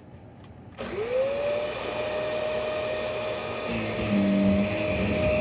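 Shark vacuum cleaner switched on about a second in, its motor spinning up with a rising whine and then running steadily; a lower hum joins it near the end.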